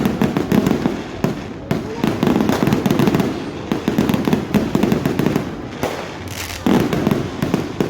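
Aerial fireworks bursting overhead: a rapid, irregular string of sharp bangs and crackles.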